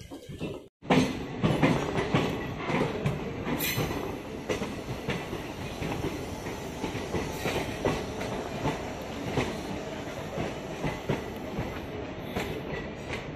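DEMU train running at speed, heard from its open doorway: the wheels keep up a dense, irregular clatter over rail joints and points. The sound cuts out briefly just under a second in and comes back loud.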